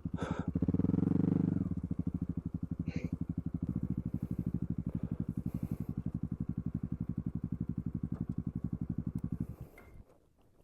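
Motorcycle engine blipped briefly, then idling with an even, rapid pulse, switched off near the end.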